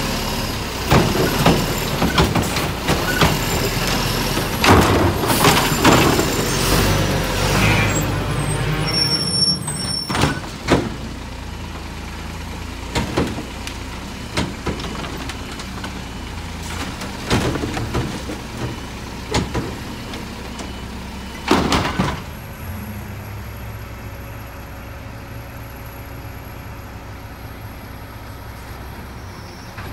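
McNeilus Autoreach automated side-loader garbage truck working: the engine runs steadily under many clanks and knocks for the first ten seconds or so. After that come only a few single knocks, then a steadier, quieter run near the end.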